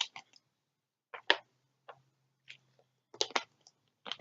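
Scattered soft clicks, about ten of them, some in quick pairs or threes, over a faint low hum that comes in about a second in.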